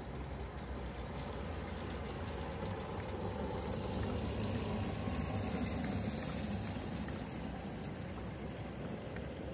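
A 7¼-inch gauge miniature locomotive running as it pulls log-laden flatcars past, with a steady low rumble that grows loudest about halfway through as the locomotive goes by, then eases off as the loaded cars roll along the rails.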